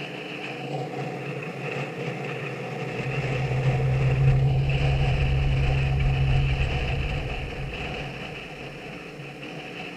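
A motor vehicle's engine hums steadily. A deep low rumble swells from about three seconds in, is loudest around four to six seconds, and fades again near the end.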